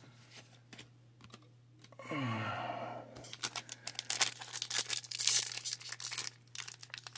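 Foil Pokémon booster pack wrapper crinkling and tearing open: a dense run of sharp crackles over the second half, after a few light clicks of cards being handled. A short sound falling in pitch comes about two seconds in.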